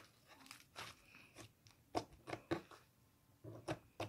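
Butter slime being kneaded by hand with lotion worked in to soften it, giving a string of short, irregular sticky clicks and pops.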